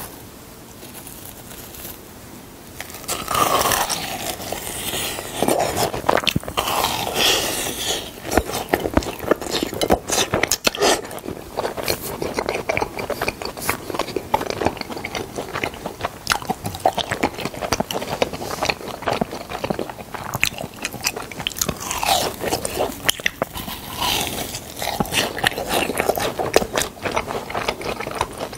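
Biting into and chewing deep-fried cheese balls with a crisp breaded crust, close to the microphone: dense runs of small crunches that start about three seconds in.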